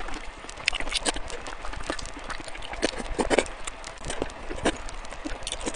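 Wet mouth sounds of eating thick noodles: irregular lip smacks, sucking slurps and chewing clicks, several a second.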